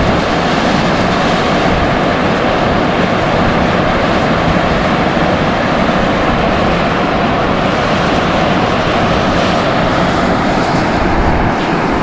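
Sulfur fumarole vent jetting very hot steam: a loud, steady hiss that runs without a break.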